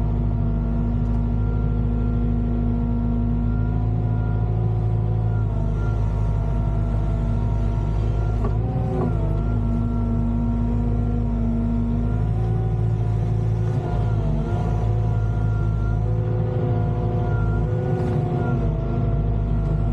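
Volvo EWR150E wheeled excavator's diesel engine running steadily, with a brief wobble in pitch about nine seconds in.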